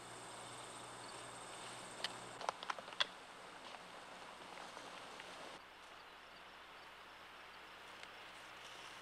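Faint steady hiss of an old soundtrack, with a handful of light sharp snaps and crackles about two to three seconds in, from footsteps moving through forest underbrush.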